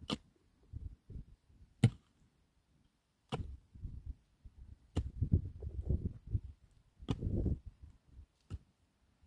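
A long-handled pick striking a dry, stony earth bank six times, about one blow every one and a half to two seconds. After several of the blows, loosened dirt and clods tumble down with a low rumble.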